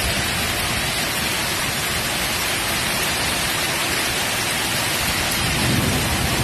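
Heavy hailstorm downpour: a dense, steady hiss of hail and rain hammering the street and cars. A low rumble swells near the end.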